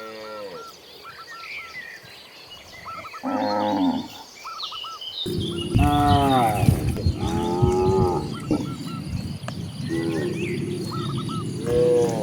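Cattle mooing: one short moo about three seconds in, then a run of four or five longer moos from different animals. Small birds chirp throughout, and about five seconds in a steady background noise comes up suddenly.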